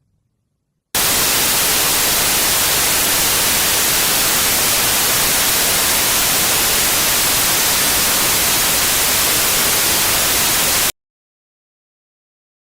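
Loud, even white-noise static like a television with no signal. It switches on abruptly about a second in and cuts off just as suddenly after about ten seconds, leaving dead silence.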